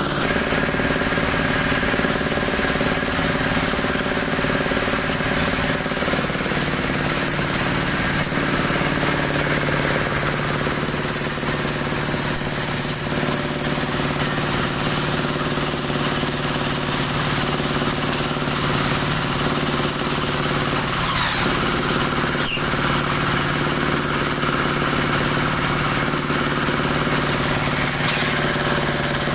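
Dowel machine for broom handles running steadily: a constant motor hum with several fixed tones under a high, even hiss.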